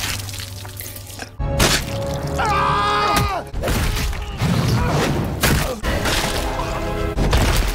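Dramatic music score from an animated action series, mixed with heavy thuds and crashing debris. The mix changes abruptly every second or two, with a falling pitched sweep about three seconds in.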